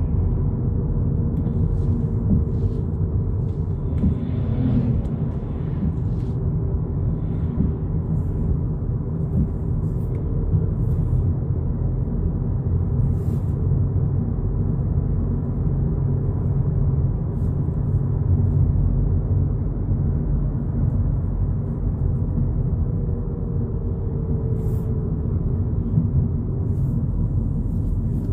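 A 2022 Volkswagen Polo GTI driving along, heard as a steady low rumble of engine and road noise.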